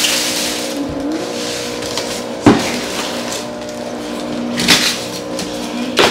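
Ceramic cookware being unpacked: packaging rustles, then a pan knocks sharply about two and a half seconds in, with lighter knocks near the end, over a steady low hum.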